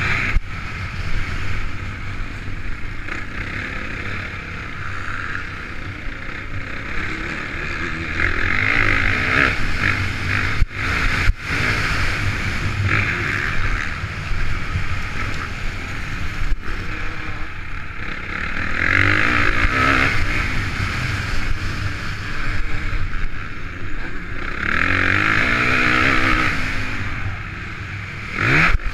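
Honda CRF450 single-cylinder four-stroke motocross engine running hard under way, revving up and down as the throttle opens and closes, surging louder several times, heard from a camera mounted on the bike or rider.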